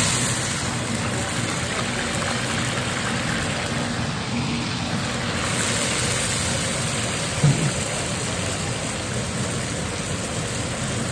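Diced food sizzling steadily in hot oil in a large iron wok, just after going into the oil wet. A single low knock about seven seconds in.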